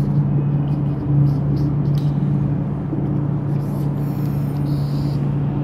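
A steady low machine hum, with short scratchy strokes of a marker on a whiteboard on top of it.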